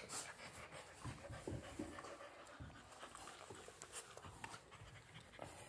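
Rottweiler puppy panting faintly.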